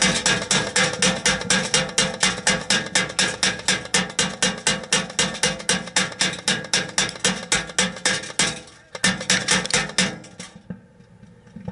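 Airsoft BBs striking a plexiglass target shield close to the microphone in a rapid, even stream of about five hits a second. The stream breaks off about 8.5 s in, resumes briefly and stops about 10.5 s in.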